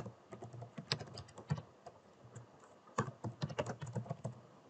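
Computer keyboard keys clicking in typing: a run of keystrokes over the first second and a half, a short pause, then another quick run about three seconds in.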